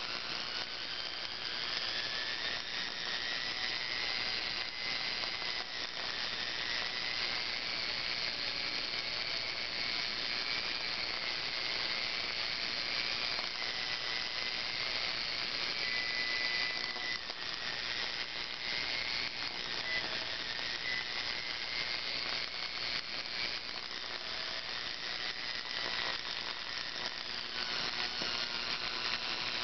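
Small universal motor from a paper shredder running flat out, a high whine that wavers up and down in pitch over a steady hissing crackle. The crackle is heavy sparking between the carbon brushes and the commutator as the motor is run to burn out.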